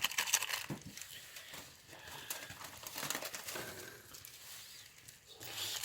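Plastic instant-ramyeon packaging crinkling and rustling as it is handled and emptied into the pan, coming in uneven swells of fine crackles.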